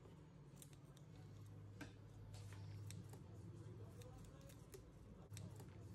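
Near silence: a faint low hum with scattered small clicks.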